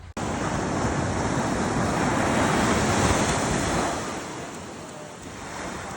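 Ocean surf washing on a beach, swelling to a peak about three seconds in and then easing off, with wind buffeting the microphone.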